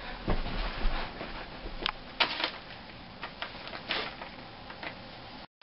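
A few short, light clicks and knocks scattered over a steady background hiss, with the sound dropping out abruptly for a moment near the end.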